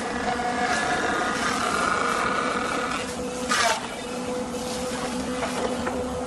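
Wood thickness planer running with a steady whine while a board feeds through it and the cutterhead shaves it. About three and a half seconds in there is a brief, louder rasp.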